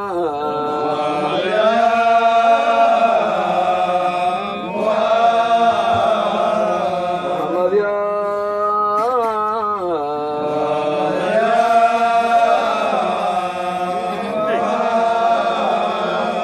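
Sufi dhikr chanting of a Qadiriya qasida: a voice drawing out long, ornamented phrases with wavering pitch over a steady held low note.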